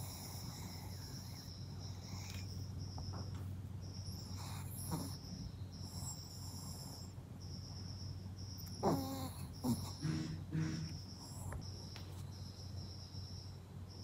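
Crickets chirping steadily in short repeated pulses over a low hum, with the soft breathing of a sleeping Maltese puppy. About nine and ten seconds in come a couple of short nasal snorts.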